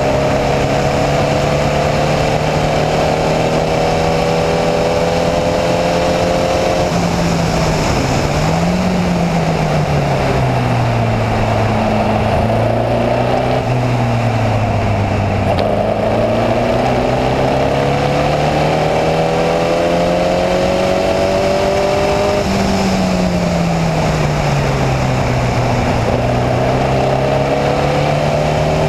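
Onboard sound of a Formula Vee race car's air-cooled Volkswagen flat-four engine at racing pace: it climbs through the revs, drops sharply about seven seconds in with a quick blip as the driver shifts down into a corner, then pulls up through the revs again. Around twenty-two seconds it falls once more and picks up again near the end, over a steady rush of wind and tyre noise.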